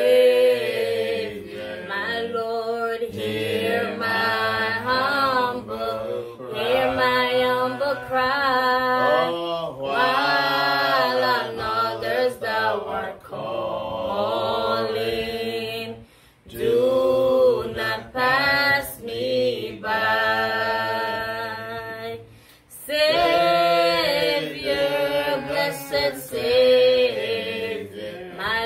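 Voices singing a slow hymn, phrase after phrase, with brief breaks between lines.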